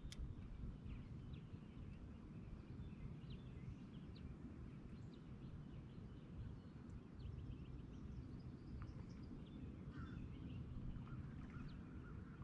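Quiet open-air ambience on the water: a steady low rumble with scattered faint, high bird chirps, a few more of them near the end.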